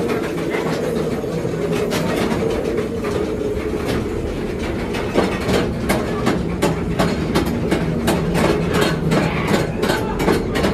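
Mine-ride train cars rolling along the track in a tunnel: a steady rumble with clattering clicks from the wheels, the clicks coming faster and more regularly from about halfway through.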